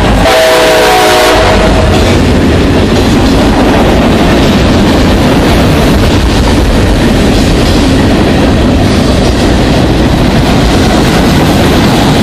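CSX diesel freight train passing close by: the locomotive's horn sounds and stops about a second and a half in, then the loud, steady noise of the freight cars rolling past.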